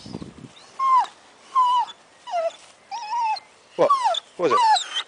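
Dog whining in a string of short, high calls, each one dropping in pitch, about one every 0.7 seconds, as if talking to its owner.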